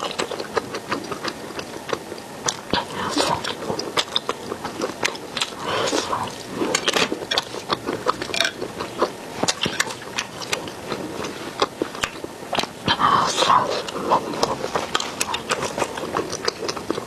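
Close-miked chewing and lip-smacking as a person eats crayfish tails bitten off a skewer, with many quick wet clicks and smacks throughout.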